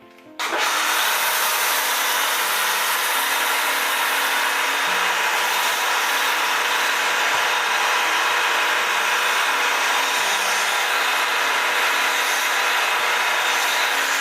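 AR Blue Clean AR630TSS pressure washer spraying foam through a foam cannon onto a car: a steady, loud hiss that starts abruptly about half a second in as the trigger is squeezed.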